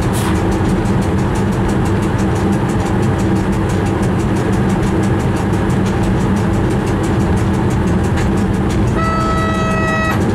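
Steady running rumble of a train on the rails, heard from inside the driver's cab, with a brief click just after the start. Near the end the train's horn sounds one steady blast of about a second.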